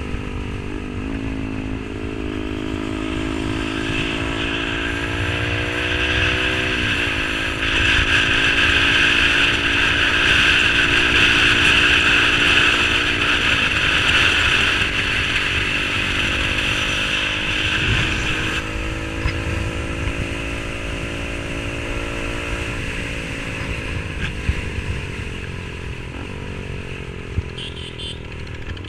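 Yamaha R15 V3 155 cc single-cylinder engine breathing through an SC Project aftermarket exhaust while riding: the pitch climbs steadily, then drops sharply at each upshift, a few times over. The sound grows louder with a rushing noise through the middle stretch.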